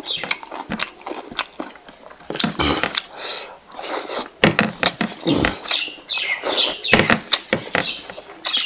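A person chewing a mouthful of fried pork and rice. The chewing is loud, with many irregular sharp mouth clicks and smacks.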